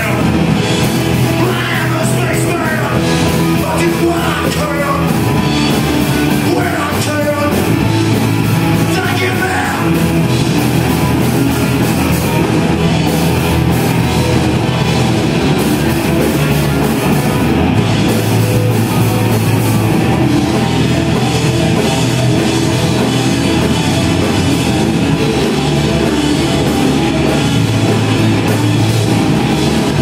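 Live rock band playing: electric guitars through amplifiers and a drum kit, with a singer's voice over them in roughly the first ten seconds.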